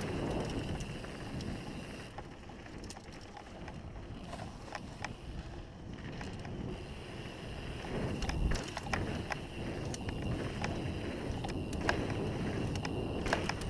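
Mountain bike riding down a dirt and gravel trail: tyres rumbling over the surface and the bike rattling, with many sharp clicks and knocks over a steady hiss of wind on the microphone. The rumble grows heavier about eight seconds in.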